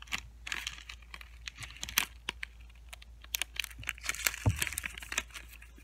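Plastic candy wrappers crinkling and crackling as packages are handled, with a run of sharp irregular clicks and a low bump about four and a half seconds in.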